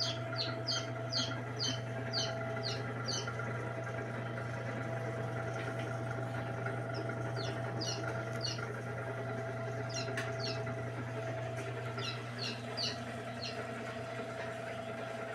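Chick inside an egg incubator peeping: runs of high, falling peeps, about three a second, that come in groups with short pauses. A steady hum runs underneath.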